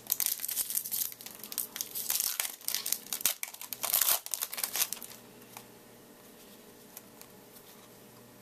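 Foil wrapper of a trading card pack crinkling and tearing open by hand, with rapid crackling for about five seconds before it stops.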